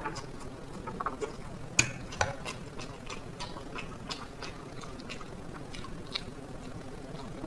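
Close-up eating sounds: a person chewing black bean noodles, with irregular small wet clicks and smacks, the sharpest a little under two seconds in and again just after.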